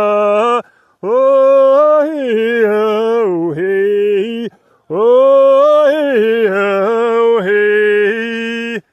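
A man's voice chanting wordlessly in long held notes that slide up and down, in several phrases separated by short breaths, breaking off just before the end.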